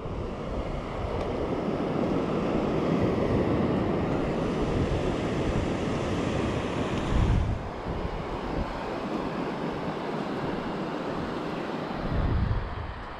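Surf washing onto the beach under wind rumbling on the microphone, louder for a moment about seven seconds in and again near the end.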